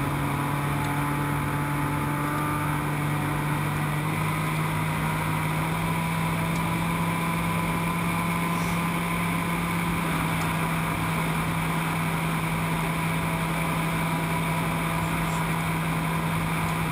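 Brushless electric motor and propeller of a Skywalker FPV plane running steadily in flight, with wind rush over the airframe. The drone holds one steady low tone that steps up slightly in pitch about two seconds in.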